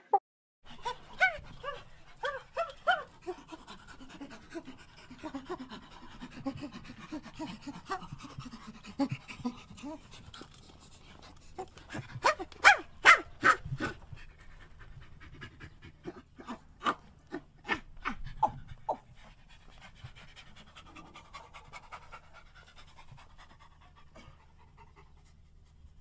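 Primate calls: a series of short, breathy panting calls and squeaks, rising to a run of loud, rapid calls about twelve seconds in and another run a few seconds later, then trailing off fainter over a low steady hum.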